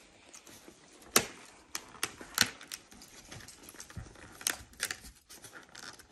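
Fingers tapping and picking at the doors of a cardboard advent calendar: scattered light clicks and taps, with a few sharper ones.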